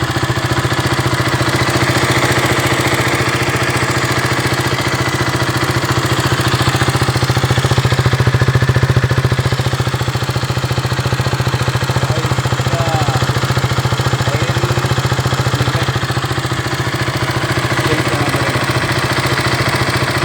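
KTM Duke 200's single-cylinder four-stroke engine idling steadily, swelling slightly about eight seconds in. This is the engine noise that the owner presents as a problem.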